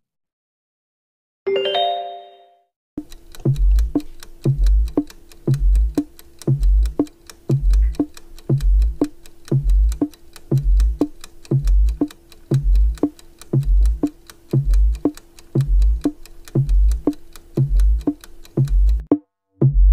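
Quiz countdown-timer sound: a short chime, then an even ticking beat with a deep thump about once a second over a held low tone, keeping time with the countdown. It starts about three seconds in and stops just before the end.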